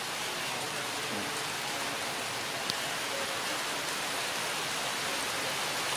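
Steady rushing hiss like falling rain, even throughout, with a single sharp click about two and a half seconds in.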